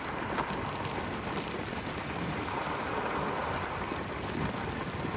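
Steady rushing noise of wind across the microphone and wheels on pavement while riding a Segway at speed.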